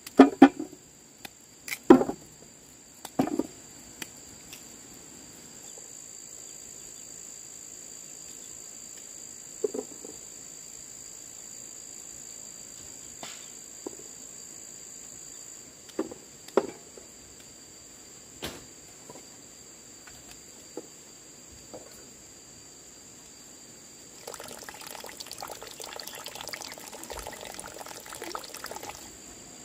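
Insects chirring steadily with a continuous high-pitched tone, with a few separate knocks and clatters and a louder spell of noise lasting about five seconds near the end.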